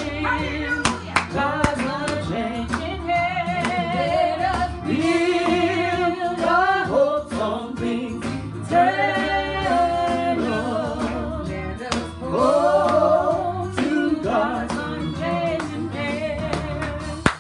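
Gospel music playing: voices singing with vibrato over instrumental backing, with sharp percussive hits.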